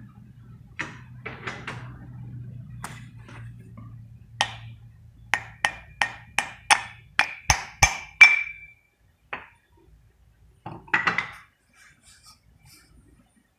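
A hammer striking a rusty steel leaf-spring base plate about ten times in quick succession, each blow with a short metallic ring, the last the loudest. A faint steady hum runs under the first half, and there is some knocking and handling of the part afterwards.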